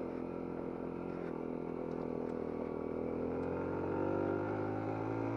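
Dax-style mini motorcycle's single-cylinder engine running under way, its note sagging slightly and then picking up again near the end.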